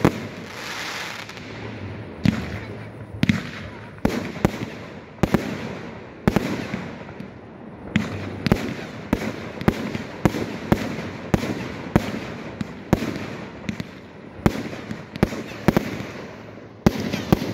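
Firework display shells launching and bursting in rapid succession: a string of sharp bangs, irregular at first, then about two a second from the middle on, with a dense cluster of reports near the end.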